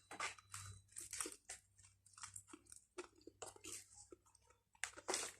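Someone chewing crispy fried chicken: a run of irregular crunches, a few each second, with a louder crunch near the end.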